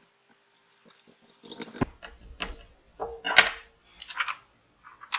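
Light handling noises of hand work on a phone's rear glass and its adhesive film: scattered clicks and short crinkly rustles, busier and louder from about two seconds in.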